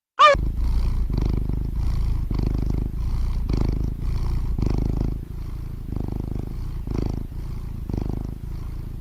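A domestic cat purring: a steady low rumble that swells and eases with each breath, about once a second. A brief high-pitched sound comes at the very start.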